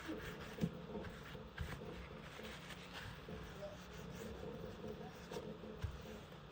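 Faint rubbing and a few light taps of a cloth wiping and handling an iPad's screen during cleaning, over a steady low hum.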